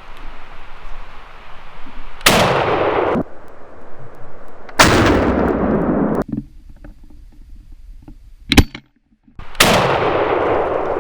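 Shotgun blasts, four in all, each sudden and followed by a rolling echo that is cut off short; the sharpest and loudest comes about two-thirds of the way through.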